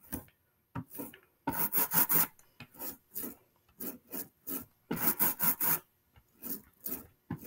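A rubber brayer is rolled back and forth through tacky black printing ink on a carved vinyl linocut plate, laying down a thin, even coat before printing. It makes a run of short, noisy rolling strokes that come in bunches of several, with brief pauses between.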